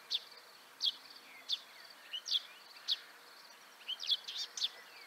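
Small songbird giving short, sharp, downward chirps about every two-thirds of a second, breaking into a quicker run of several chirps about four seconds in, over a faint steady high-pitched trill.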